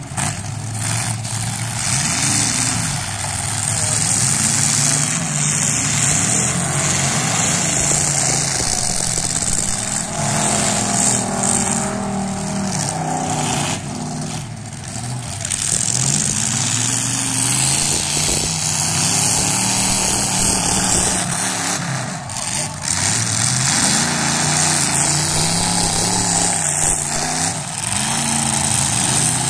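Engines of several full-size demolition derby cars revving hard, their pitch rising and falling again and again as the cars race and ram each other, with a few short bangs.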